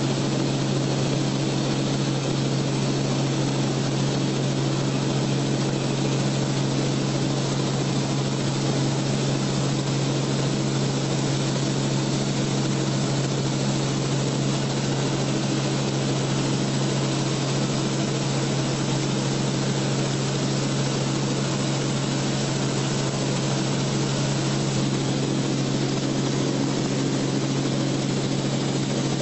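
Aircraft engine running steadily, heard from inside the cabin: a constant low hum with a rushing noise over it that does not change.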